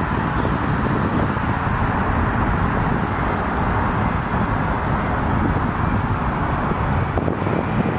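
Twin-engine widebody jet airliner on final approach, its engines giving a steady, even roar.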